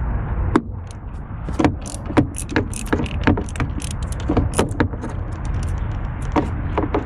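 Irregular sharp clicks and metal taps from a hand tool working the bolt of the catch can bracket in the engine bay, while the old bracket is taken off. A steady low rumble runs underneath.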